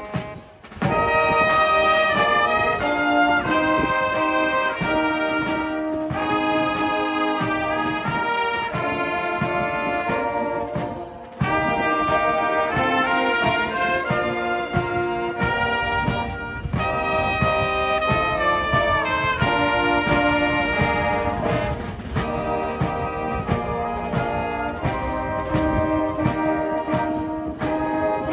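Live wind band playing a tune on brass, saxophones and drum kit, with tubas and trumpets carrying the melody. The music breaks off briefly about half a second in and again near eleven seconds.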